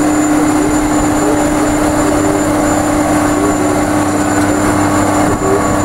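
Diesel engine of a Case IH Quadtrac 535 tracked tractor running steadily under load as it pulls a Horsch tillage implement through stubble: a loud, even drone with a strong steady hum.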